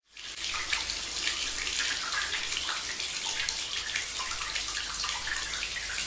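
Water pouring in a steady thin stream from a small toy bucket, splashing into a shallow miniature pond. The pouring begins suddenly.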